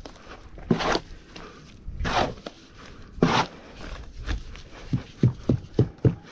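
A long-handled hoe scraping and chopping through wet cement and granite-chip mortar on a board during hand mixing. There are about three slow, drawn-out scraping strokes, then a quicker run of short chops near the end.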